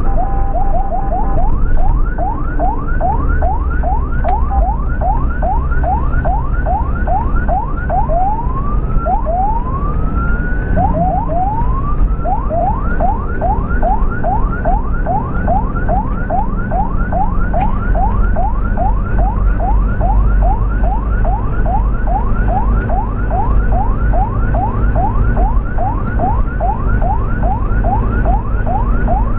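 Ambulance electronic siren in fast yelp mode, rapid rising sweeps about three a second. About a third of the way in it switches briefly to a few slower rising whoops, then goes back to the yelp. A steady low vehicle rumble runs beneath.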